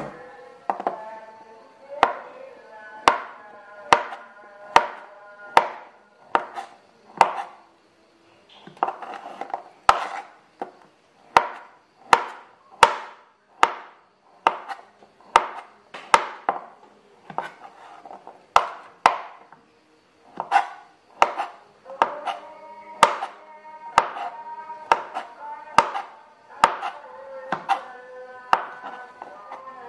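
Kitchen knife slicing sausages on a plastic cutting board: a steady run of sharp knocks of the blade hitting the board, a little more than one a second, with a couple of short pauses.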